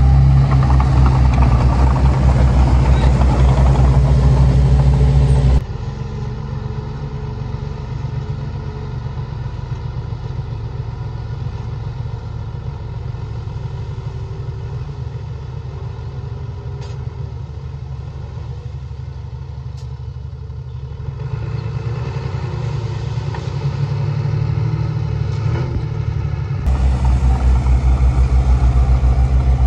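Heavy diesel engine of earthmoving machinery running steadily, loud at first. It drops abruptly to a quieter, duller engine sound for about twenty seconds, then comes back loud just as suddenly near the end.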